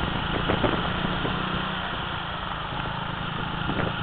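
Motorcycle engine running steadily while riding along, with a few light knocks about half a second in.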